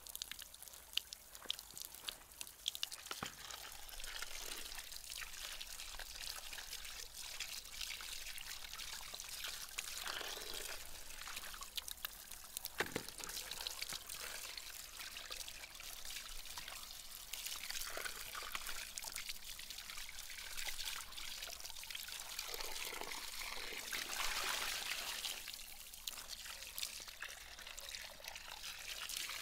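A thin stream of water pouring steadily from a stone spring's spout, splashing onto the ground and into a plastic basin where raw beef tongues are being rinsed and rubbed by hand. There is one sharp knock about halfway through.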